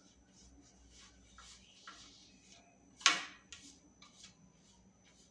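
Silicone brush swishing and scraping over a nonstick air fryer tray as oil is spread on it, in soft, irregular strokes, with one sharp knock about three seconds in.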